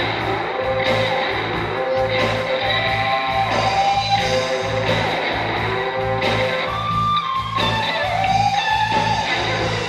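Band playing an instrumental passage: a lead guitar plays bending, sliding notes over bass and a steady beat.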